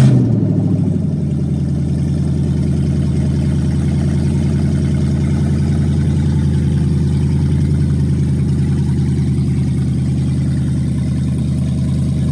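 Jeep Grand Cherokee SRT's HEMI V8 just after starting, running with its catalytic converters deleted: the start-up flare dies down within about a second into a steady, loud idle.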